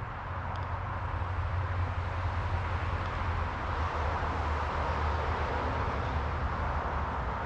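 Steady rushing of creek water, with a low rumble of wind on the microphone underneath.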